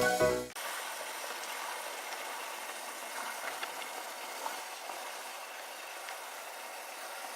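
Smoked beef ribs sizzling as they cook: a steady hiss with a few small pops. A music sting cuts off about half a second in.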